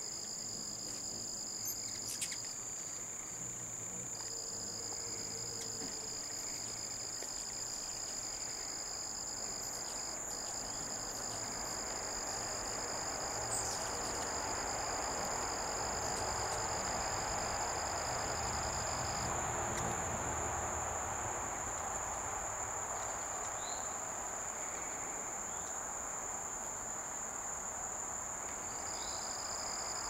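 Insect chorus trilling steadily at two high pitches. The lower trill drops out for a moment near the start and again for about ten seconds after the middle. Beneath it is a soft outdoor hiss that swells slightly in the middle.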